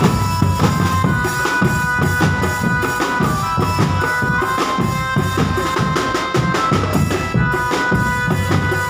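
Live drumband music: bass drums and snare drums beating a steady rhythm under a high wind-instrument melody played in long held notes.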